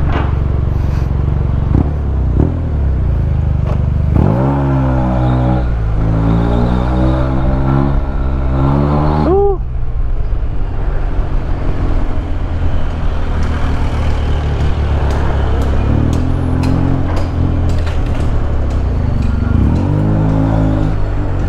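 Yamaha TMAX 560's parallel-twin engine through a Termignoni titanium full exhaust, pulling hard under acceleration with a crunchy note. The note climbs from about four seconds in, rises further, and drops off suddenly near the ten-second mark; two shorter rising pulls come near the end, over a constant rush of wind and road noise.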